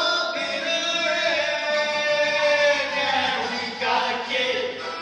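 A stage-musical duet sung by male voices over band accompaniment, with one long held note for nearly the first three seconds and a new sung phrase starting shortly after.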